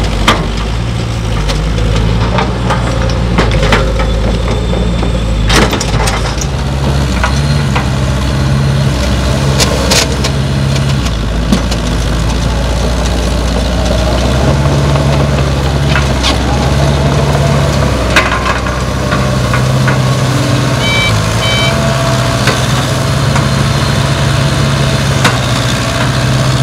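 Caterpillar 312B tracked excavator's diesel engine working under load, with the bogged dump truck's engine also running, as the excavator's bucket pushes the truck out of the mud. The engine note rises and falls in steps, with occasional sharp knocks.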